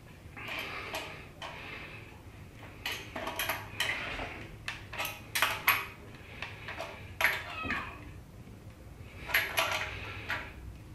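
Irregular metallic clicks and clinks, some ringing briefly, from a hand tool working the handlebar stem bolt while the handlebars are fitted and tightened on a child's bicycle.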